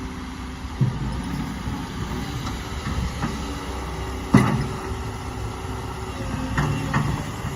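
Diesel engine of a Volvo ECR145EL excavator running steadily, with metallic clunks from the machine working: one about a second in, a loud one about halfway through, and two more near the end.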